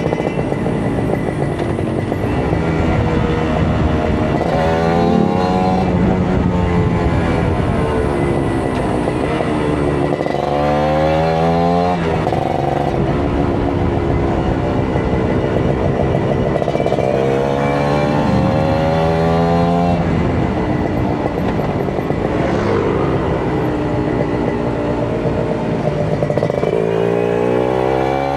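Kawasaki Ninja RR 150's two-stroke single-cylinder engine under way, revving up through the gears and dropping back several times, rising and falling in pitch.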